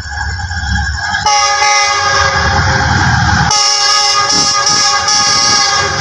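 Air horn of a GEU-40 diesel locomotive sounding a loud chord in long blasts as the express approaches at speed, re-sounding about a second in and again at about three and a half seconds, over the low rumble of the oncoming train.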